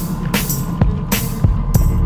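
Background music with a steady drum beat and heavy bass, in an electronic or hip-hop style.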